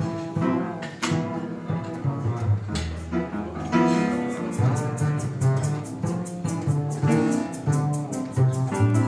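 Upright piano and plucked double bass playing a bossa nova tune, the bass walking along under the piano's chords and melody, with no saxophone. From about four seconds in, a light, even ticking keeps time above them.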